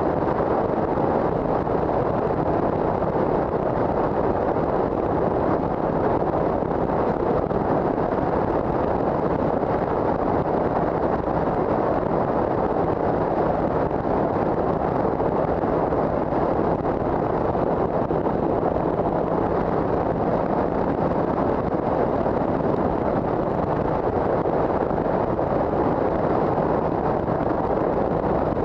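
Steady wind rush buffeting a helmet-mounted microphone at constant cruising speed, over the even low drone of a 2007 Triumph America's 865 cc parallel-twin engine.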